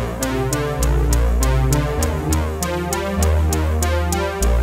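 Electronic background music: synthesizer chords over a deep bass line and a steady programmed beat.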